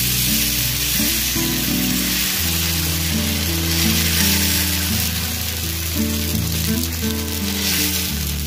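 Uttapam batter sizzling on a hot oiled tawa as it is spread out with a steel ladle, a steady hiss, with background music underneath.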